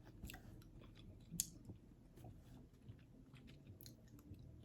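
Faint chewing of a sticky gummy candy, with scattered small wet clicks and one sharper click about a second and a half in.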